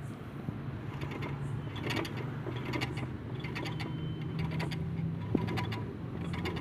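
A steady low mechanical hum with scattered light metallic clicks and taps, and one sharper knock about five seconds in.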